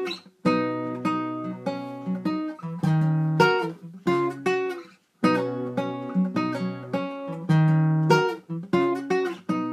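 Background music on acoustic guitar: a lively run of plucked and strummed notes, with a brief break just after the start and another about five seconds in.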